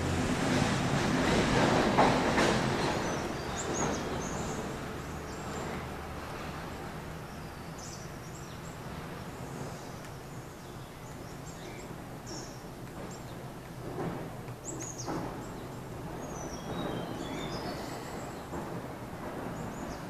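A loud, low mechanical rumble with a steady hum, like a passing vehicle, fades over the first few seconds into steady background noise. Scattered short, high bird chirps and calls follow, with a couple of sharp knocks around the middle.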